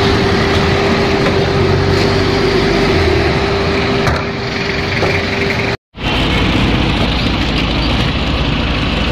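Steady roadside traffic noise with vehicle engines running, a steady hum under it in the first half. The sound cuts out completely for a moment just past the middle, then the traffic noise resumes.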